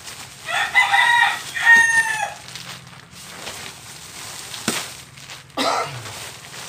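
Rooster crowing once, a long multi-part call that starts about half a second in and lasts nearly two seconds. A sharp click follows a few seconds later.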